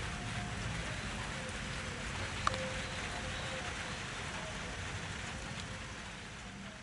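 Steady rain falling, with one sharp tick about two and a half seconds in; the sound fades down near the end.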